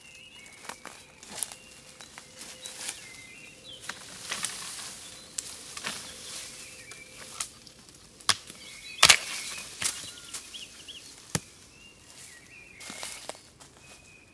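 Large Leuku-type knife blade chopping into a thin birch sapling: a series of sharp woody chops at uneven spacing, the loudest about nine seconds in.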